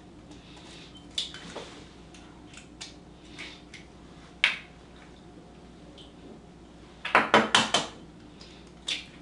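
Eggs being cracked on the rim of a small bowl: single sharp taps spread out, then a quick run of about five taps about seven seconds in.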